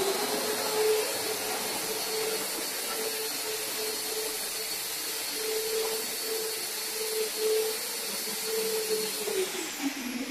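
Electric sander running steadily with a high motor whine, then winding down in pitch near the end as it is switched off; no vacuum is attached to it.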